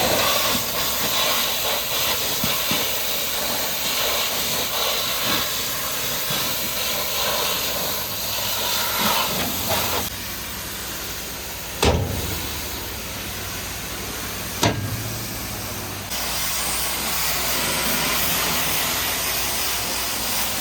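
High-pressure washer jet spraying, a steady hiss, with two short sharp knocks in the later part.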